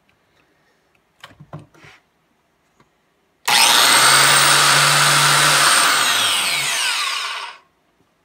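Ryobi JM82GK 6-amp corded biscuit joiner switched on about three and a half seconds in and plunged into the side grain of a board to cut a biscuit slot. It then switches off and winds down with a falling whine. A few light knocks of handling the wood come before it starts.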